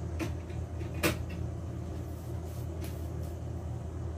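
A steady low hum, with a few light clicks and one sharper knock about a second in.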